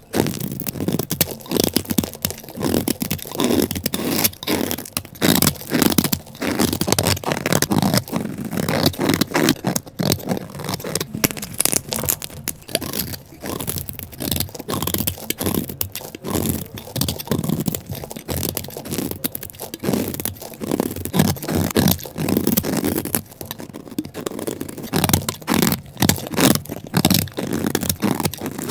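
Rapid, irregular crunching and scraping of a brittle, crumbly block being cut and crushed by hand.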